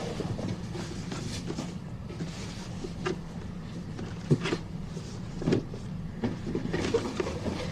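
Soft rustling and a few light knocks of a gift package being handled and opened, over a low steady hum.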